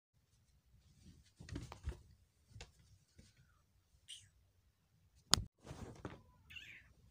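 Faint rustling and soft thumps of a person moving about, with one sharp click a little past five seconds.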